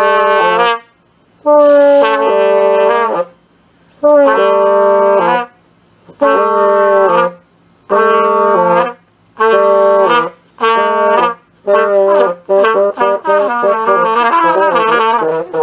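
A cornet played in loud held notes, in short phrases with pauses between them, turning to a run of quicker notes in the last few seconds.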